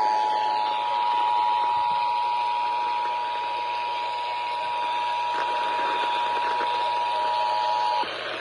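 Emergency Alert System two-tone attention signal (853 Hz and 960 Hz sounded together) received over the radio with static hiss under it. It holds steady, then cuts off suddenly about eight seconds in. It is the alert signal that precedes an EAS activation message, here a severe thunderstorm warning.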